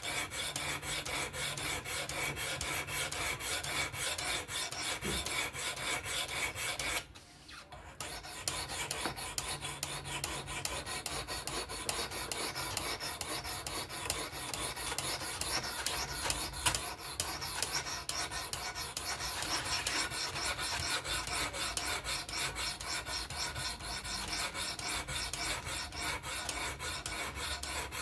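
Sharpening stone rasping along a knife blade in fast back-and-forth strokes on a fixed-angle sharpener, with a brief pause about seven seconds in.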